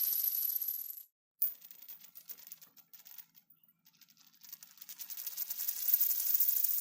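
A coin spinning and wobbling on a hard surface. Its rapid metallic rattle cuts off about a second in as it settles. A new spin starts with a click just after, faint at first, and the rattle grows louder and denser toward the end.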